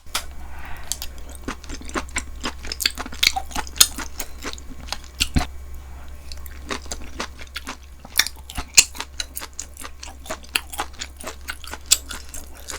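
Close-miked chewing of grilled beef small intestine (gopchang) in tteokbokki sauce: a dense run of sharp wet mouth clicks and smacks, several a second.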